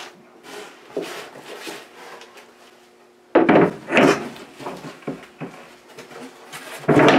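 Plywood board being fitted onto an anvil: its square steel peg goes into the hardy hole and the board is laid flat, giving a few knocks and wood-on-metal scrapes. The loudest come about three and a half seconds in and again near the end.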